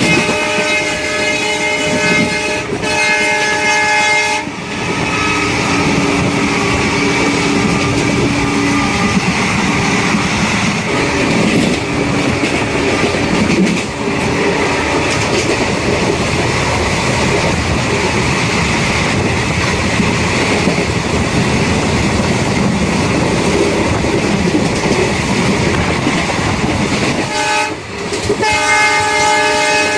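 Indian Railways express train running along the track with steady wheel-on-rail clatter. A held horn sounds for the first few seconds, with a short break, and sounds again near the end.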